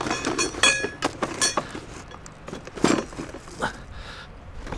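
Small metal tools and sockets rattling and clinking in a bucket as it is carried, with sharp metallic clinks that ring briefly, most of them in the first second and a half, and a louder knock about three seconds in.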